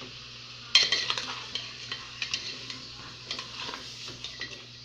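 Chicken frying in a pan of oil, sizzling, while a utensil stirs it, scraping and clicking irregularly against the pan; the stirring starts with a loud clatter under a second in.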